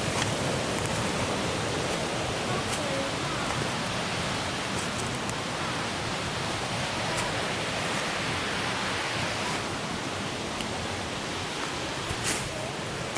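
Steady rush of water from a waterfall and creek, with a short click near the end.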